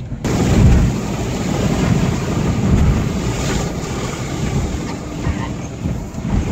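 Cabin noise of a Jeep Liberty 2.8 CRD turbo diesel being driven at road speed: a steady, loud rush of road and wind noise over a low rumble, with wind buffeting the microphone.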